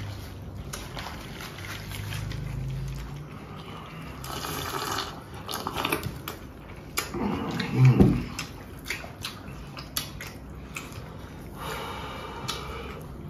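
Close-up eating sounds: wet mouth noises and small clicks and rustles of food being handled. There is one louder low thump a little past halfway.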